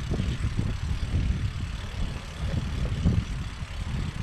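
Wind buffeting the microphone during a bicycle ride: an uneven, gusting low rumble.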